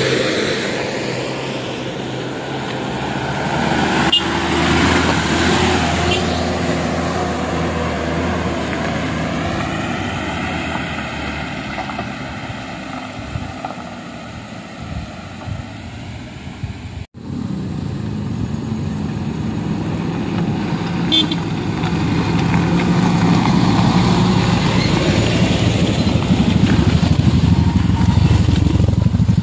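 Motor vehicle engines passing on a rough road. Near the end, motorcycle engines get louder as the bikes ride up close.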